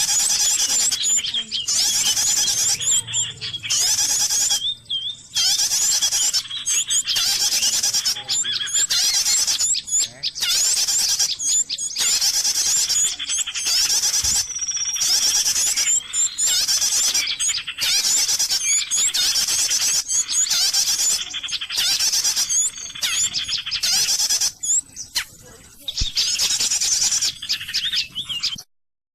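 Recorded bird-call lure played from an MP3 player: dense, high chirping and trilling in repeated bursts of about a second with short gaps between, cutting off suddenly near the end.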